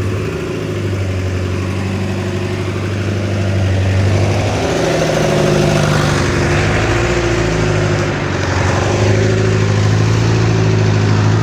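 An engine running steadily, its pitch shifting a couple of times, about four and a half and nine seconds in.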